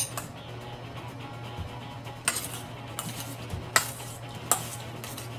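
A metal spoon stirring diced octopus and vegetables in a stainless steel bowl, with a handful of sharp clinks against the bowl from a little past two seconds in. There is quiet background music under it.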